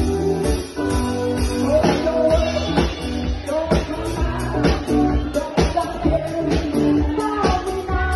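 Live band playing a song: a woman singing lead through a microphone over drums and electric guitar, with a steady drum beat.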